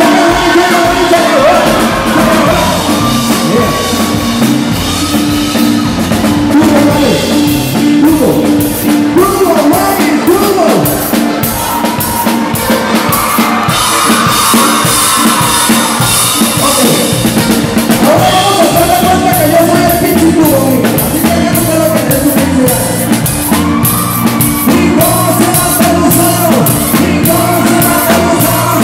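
Live norteño band music played loud: button accordion, guitars, bass and drums keeping a steady dance rhythm.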